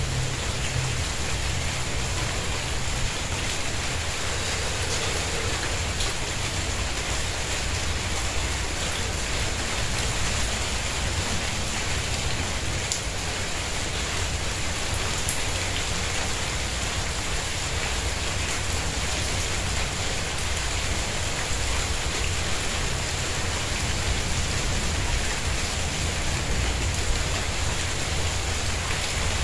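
Steady rain falling on a tiled courtyard and garden plants: a continuous even hiss, with a few sharper drop ticks standing out now and then.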